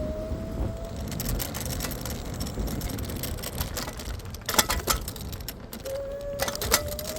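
Electric scooter's motor whine, rising slowly in pitch as it gathers speed, over steady road and wind rumble. The whine fades after the first second and returns near the end. A few sharp rattles come a little past the middle and again near the end.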